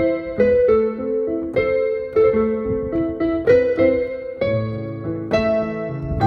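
Background piano music: a melody of struck keyboard notes over chords, with lower bass notes coming in about halfway through.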